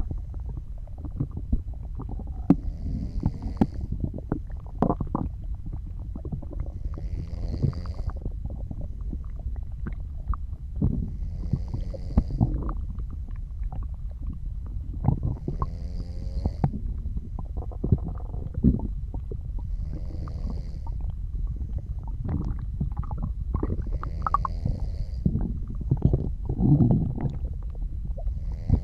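A person's stomach and intestines gurgling and rumbling, with irregular squeaky gurgles and pops, the loudest a long gurgle near the end. Under it are soft snoring breaths, one about every four seconds.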